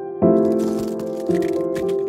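Soft piano background music. About half a second in, a quick patter of small clicks and rustles joins it for about a second and a half.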